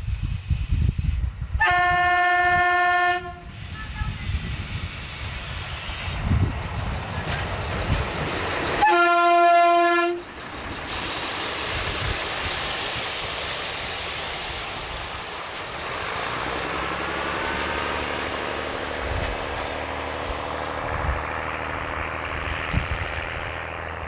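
A 'Ferkeltaxe' diesel railbus (DB class 771/772) sounds its horn twice, each a single steady note lasting about a second and a half, the second blast louder. It then runs past close by with the rushing noise of its wheels and engine, which fades slowly as it draws away.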